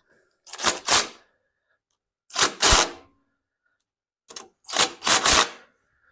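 3/8-inch ratchet wrench clicking in short back-strokes while the valve cover bolts on a Briggs & Stratton mower engine are tightened: three brief bursts of ratcheting, each of two or three quick strokes, about two seconds apart.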